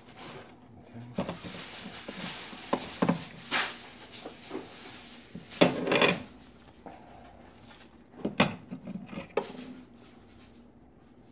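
Kitchen handling noises: scattered knocks and clicks of things being picked up and set down, with a louder clattering scrape about six seconds in and a few more knocks near the end.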